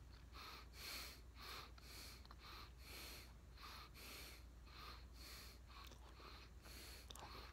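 Faint, regular closed-mouth chewing of a large wad of bubble gum, about two soft chews a second.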